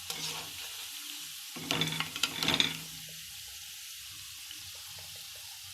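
Onion pakoda fritters deep-frying in hot oil: a steady sizzle. About two seconds in, a short louder stretch of clicks and scraping as they are stirred in the pan.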